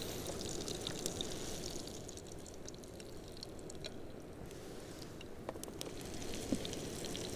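Meat cutlets frying in oil in a pan: a soft sizzle with scattered crackles and pops, thinning for a couple of seconds in the middle.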